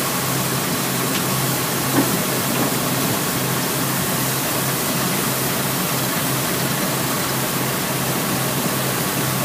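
2002 Elgin Pelican street sweeper running steadily while its hydraulic hopper lowers from the raised dump position: a constant hum under a broad, even hiss, with a small knock about two seconds in.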